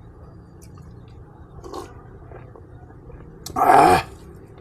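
Close-miked eating sounds of a person chewing pork ribs, quiet for most of the time, with a short loud burst about three and a half seconds in.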